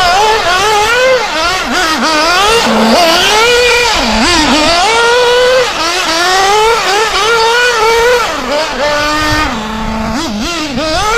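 Novarossi nitro engine of a Kyosho Inferno MP10 1/8 buggy revving hard and falling back over and over under quick throttle changes. It settles briefly to a steady idle a few times.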